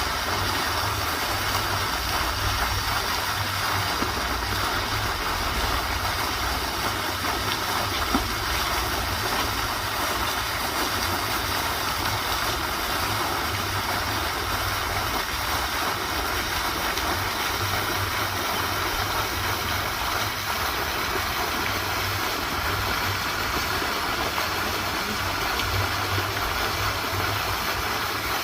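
Steady rushing of flowing water, a continuous even noise with a rumble underneath.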